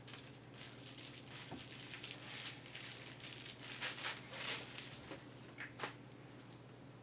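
Bubble wrap being pulled off a flat cardboard palette box by hand: irregular plastic crinkling and rustling, with a few louder crinkles between about four and six seconds in.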